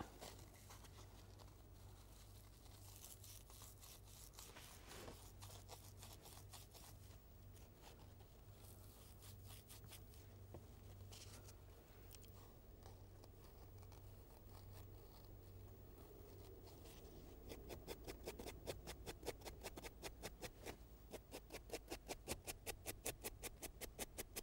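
Faint scratchy scrubbing of a small metal screw against the green abrasive scouring pad of a sponge, cleaning grime off it, in quick back-and-forth strokes that turn faster and louder for the last several seconds.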